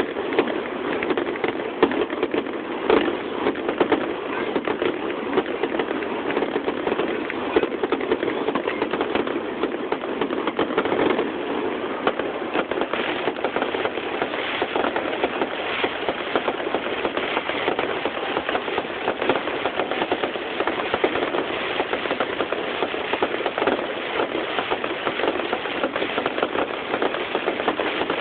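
Fireworks finale: a dense, unbroken barrage of pops and crackling, many reports a second, with no pause.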